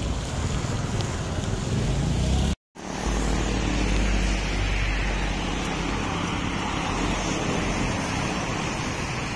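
Road traffic noise: an even rumble of passing motor vehicles. It cuts out for a moment about two and a half seconds in, and after that the low rumble is stronger.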